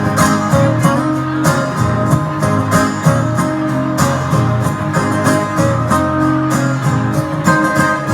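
Guitar music with chords strummed in a steady rhythm, the instrumental intro to a country song before the vocals come in.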